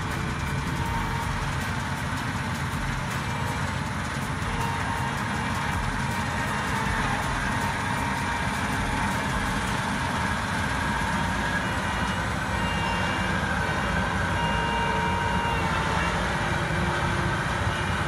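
2004 New Holland TC56 combine harvester running steadily while cutting and threshing wheat: even engine and machinery noise, with a faint whine that comes and goes.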